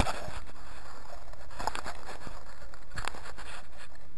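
Phone camera being handled and set down among dry leaves: soft rustles and a few crunches over a steady low rumble.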